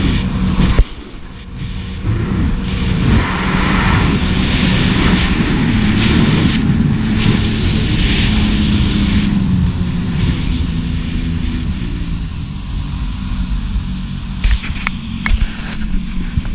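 Jet ski engine running at speed, with wind on the microphone and water rushing under the hull; the sound drops for about a second early on, then holds, and the engine note sags around ten seconds in. In the last two seconds there are sharp knocks and splashing.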